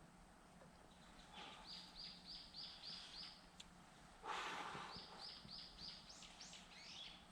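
Faint wild bird song: two runs of short repeated high notes, about four a second, ending in a few downward-sliding notes. A short rustling hiss about four seconds in is the loudest sound.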